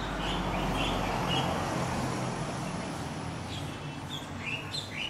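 A vehicle engine runs, growing louder about a second in and then slowly fading, with a few short high chirps over it.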